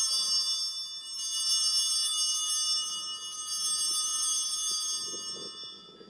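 Altar bells rung in three peals, the second about a second in and the third about three seconds in, with clear high ringing tones that die away near the end: the bells rung at the elevation of the host during the consecration at Mass.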